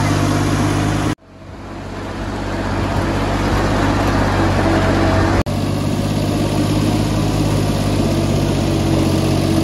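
VST Shakti VT 224 mini tractor's diesel engine running steadily as it pulls a loaded trolley. The sound cuts out abruptly about a second in and fades back up, with another brief dropout about five and a half seconds in.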